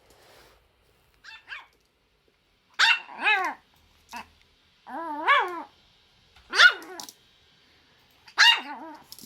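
Pomeranian barking in short, high yips that come out mixed with sneezes. Two small yips about a second in, then four louder barks, three of them opening with a sharp sneeze-like burst.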